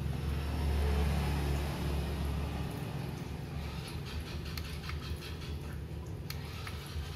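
A low, engine-like drone that fades out after about two and a half seconds, then a run of light clicks from laptop keyboard keys being pressed.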